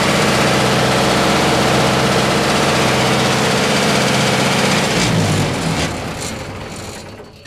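Cummins 4B3.9-G four-cylinder diesel engine of a 35 kW generator set running steadily, then shut off about five seconds in. The engine winds down unevenly and its sound fades away toward the end.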